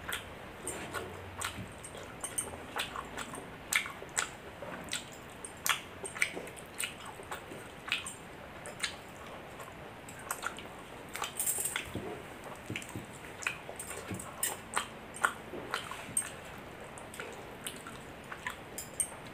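Close-up chewing and lip smacking of someone eating milk-soaked rice: many short wet clicks and smacks at an uneven pace, a couple or more a second.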